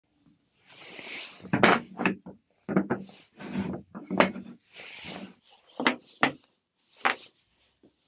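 Short wooden slats knocking and scraping as they are set down and slid across a flat board, with several sharp knocks of wood on wood between stretches of sliding.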